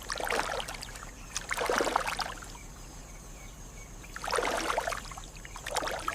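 River water splashing in four separate surges as animals move through it, with a quieter wash of water between the surges.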